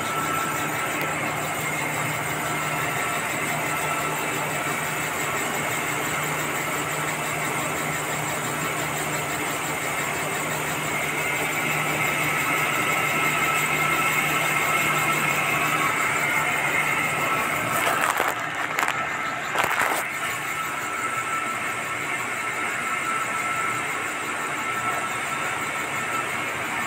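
Mill machinery, including a large centrifugal blower, running steadily with a constant hum and whining tones. A few knocks come about two-thirds of the way through.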